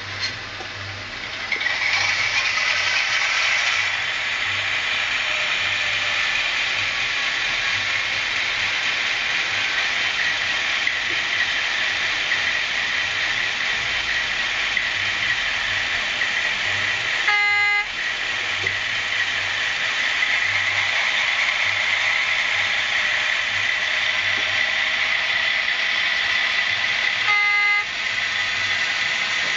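Sound decoder of a PIKO DF7C diesel locomotive model, played through its twin speakers: the diesel engine sound comes up about a second and a half in and runs steadily, with two short horn toots, one a little past halfway and one near the end.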